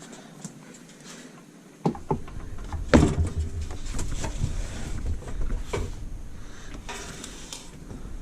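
Knocks and clunks of parts and tools being handled during assembly, over a low rumbling handling noise. They start about two seconds in, with the loudest knock about a second later.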